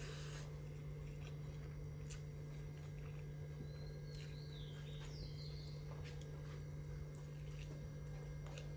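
Faint eating sounds, a person chewing and fingers working rice on a metal plate with a few soft clicks, over a steady low hum. A bird chirps briefly a couple of times around the middle.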